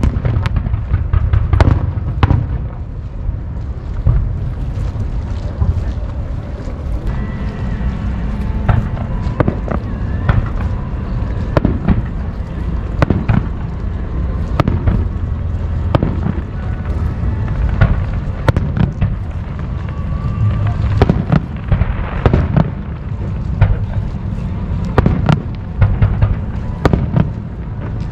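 Fireworks display: aerial shells bursting one after another, many sharp bangs a few per second over a continuous low rumble of booms.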